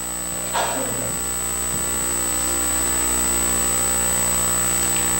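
Steady electrical mains hum and buzz with a constant high-pitched whine, slowly getting a little louder; a brief faint sound just under a second in.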